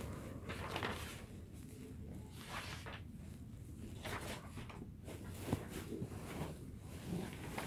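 Faint rustling with scattered soft clicks and knocks: a camera phone handled against clothing, and sheets of printed paper picked up near the end.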